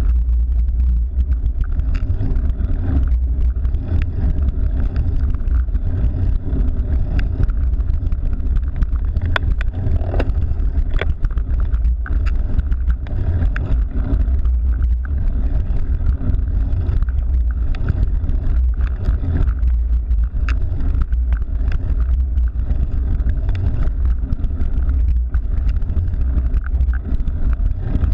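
Steady low wind rumble buffeting the microphone of a camera riding along on a cyclocross bike, with scattered sharp clicks over it.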